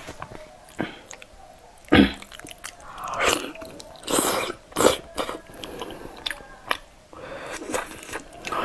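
Close-miked mouth sounds of a person biting and chewing a sauce-glazed fish with noodles: a series of short wet bites and chews, loudest about two seconds in and again around four to five seconds in.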